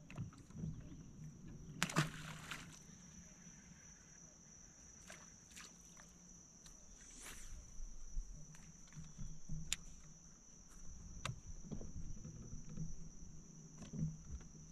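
Steady high-pitched chorus of insects such as crickets or katydids, with scattered clicks and knocks and a brief loud rushing burst about two seconds in.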